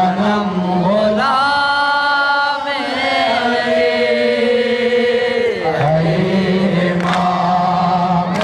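Male voices chanting a noha, a Shia mourning lament, amplified through microphones, with long held melodic notes; around the middle one high line slides slowly down in pitch.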